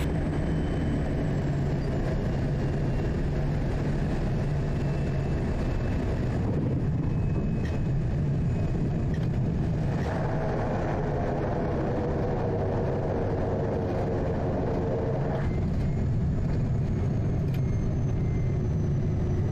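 Quest Kodiak's single turboprop engine and propeller running steadily, heard inside the cockpit during landing and rollout, with a faint high turbine whine that slowly drops in pitch. A humming band joins in about ten seconds in and fades a few seconds later.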